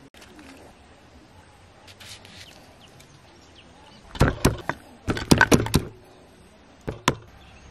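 A quiet background with a few faint chirps, then two quick clusters of sharp knocks and taps about four and five seconds in, and one more knock near the end, from food being prepared with a knife and a wooden mortar.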